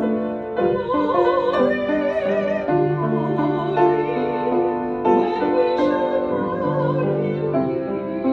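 Hymn played on an upright piano, with a voice singing over it in wide vibrato.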